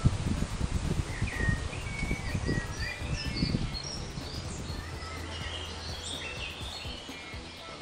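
Small birds chirping and twittering outdoors, with low thumps in the first few seconds and a steady low hum from about halfway.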